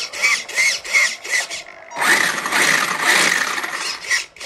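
RC car servos driven by an Arduino from the radio transmitter's inputs, whirring in short back-and-forth bursts about three a second, each with a brief rise and fall in pitch. About two seconds in comes a longer, continuous whir of about two seconds, then short bursts again.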